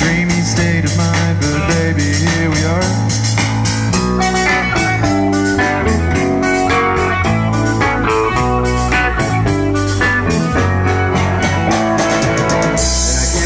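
Live rock band playing an instrumental passage: electric guitars over a driving bass line and drum kit, with no singing.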